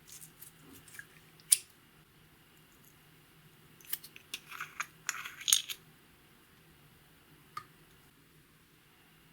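Light, sharp clicks and clinks of small hard objects: a few in the first second and a half with one louder click, a quick run of clinks about four to six seconds in, and a single click near the end.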